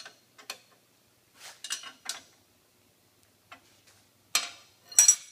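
Metal parts being handled on a workbench, clinking and clattering in short separate knocks, the loudest two near the end.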